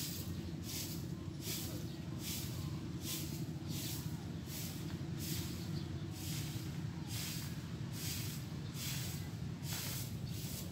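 A broom sweeping bare dirt ground: rhythmic swishing strokes, about two a second, over a steady low hum.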